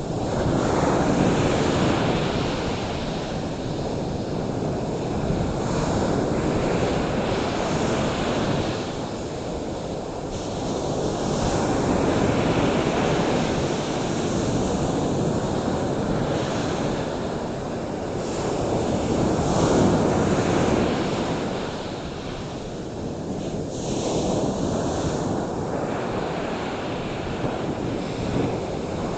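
Ocean surf washing ashore in slow swells that rise and fall every five to seven seconds.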